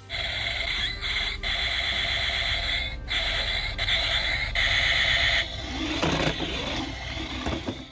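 Electronic sound effects from a toy RC tank's built-in sound chip: a buzzy, synthetic tone over a low rumble that changes in steps every second or so.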